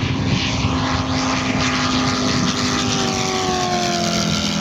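Giant-scale radio-controlled model warbird flying past, its engine and propeller running steadily; the engine's pitch falls as it passes, about three to four seconds in.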